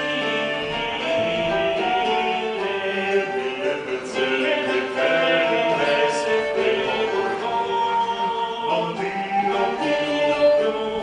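Live music from a small ensemble of bowed fiddle and plucked strings, playing a melody of held notes that step from pitch to pitch.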